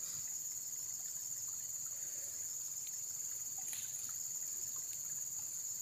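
Steady high-pitched drone of an insect chorus, with a couple of faint ticks in the middle.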